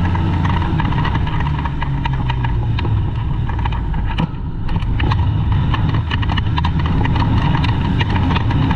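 Polaris IQ snowmobile engine running steadily, with scattered sharp clicks and knocks over it.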